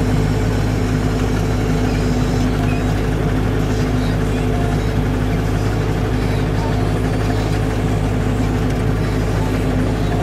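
New Holland T7030 tractor engine running at a steady, even speed, heard from inside the cab.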